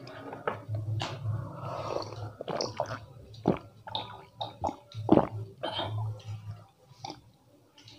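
Close-miked gulps and swallows of a fizzy cold drink drunk from a glass mug, with short wet mouth clicks between them.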